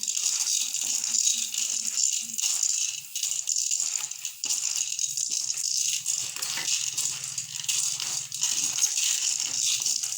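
Dry chicken feed grains being stirred by hand in a container, a continuous dense rattle of grains shifting against each other.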